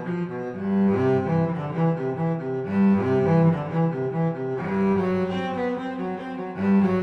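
Instrumental background music: a melody of held notes over lower sustained notes, changing pitch every half second or so.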